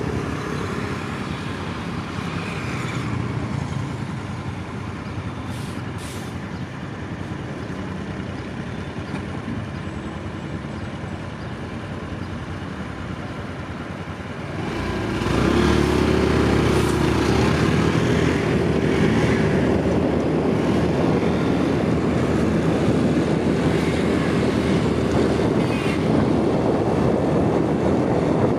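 Motor scooter running while being ridden, its engine and road noise heard from the seat. About halfway through it picks up speed and wind buffets the microphone, making it much louder, with a steady hum under the rumble.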